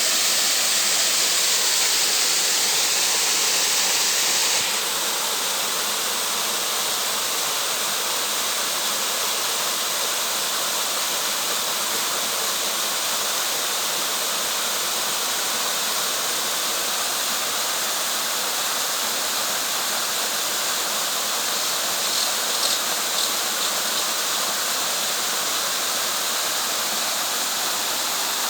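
Waterfall: the steady rush of falling water, its hiss softening slightly about five seconds in.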